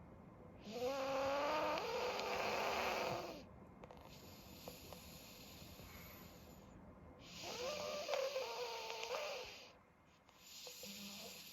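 Elderly pug snoring loudly through a blocked nose: two long snores several seconds apart, each with a rising, pitched tone over the rasp, and a fainter breath near the end.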